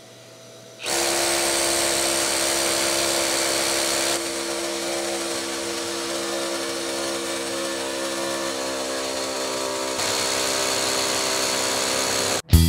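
Milwaukee M18 FUEL 2713-20 cordless SDS-plus rotary hammer drilling into concrete in hammer mode, a steady loud drone that starts about a second in. Its level drops slightly and rises again partway through, then it cuts off abruptly just before the end.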